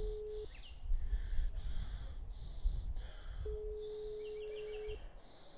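Telephone ringback tone of the Spanish kind: a single steady beep that stops about half a second in and sounds again for about a second and a half after a three-second gap, meaning the called phone is ringing and no one answers. A low rumble lies under it.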